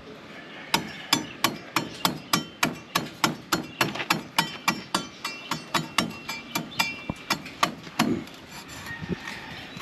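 A rusty machete chopping repeatedly into a green coconut's husk to pare it down toward the white flesh. There are about three sharp strikes a second, some with a brief metallic ring, and the chopping stops about eight seconds in.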